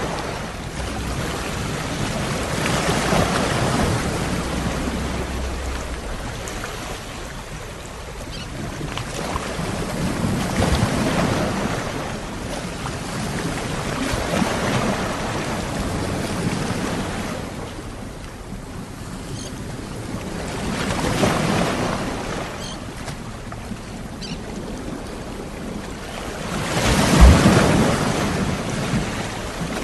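Sea waves washing onto a shore, each surge swelling and falling away every few seconds. The biggest wave comes near the end with a low thump.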